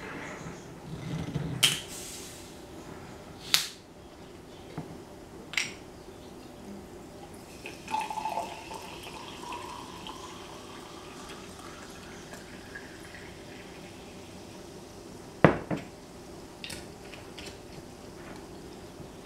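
Green glass Perrier sparkling mineral water bottle, its screw cap clicking a few times as it is opened. The sparkling water is then poured into a glass flute, the pour rising steadily in pitch as the glass fills. A single sharp click comes near the end.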